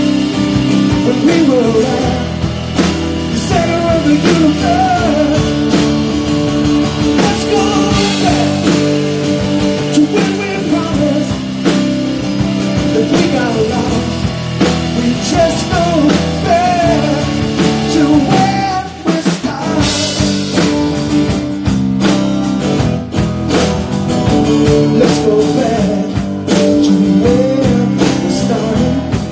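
A live rock band playing a song: a male lead vocal over acoustic guitar, bass and drum kit, with a short break in the playing a little past two-thirds of the way through.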